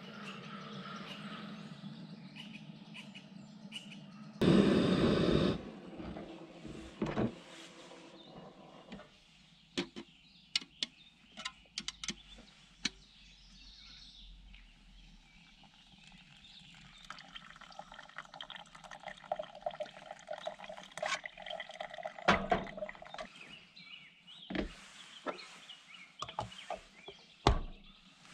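Hot water poured from a metal pot into a pour-over coffee cone over a plastic carafe, a steady trickle in the middle stretch. Around it are scattered clinks and knocks of camp cookware being handled, with one louder knock near the end.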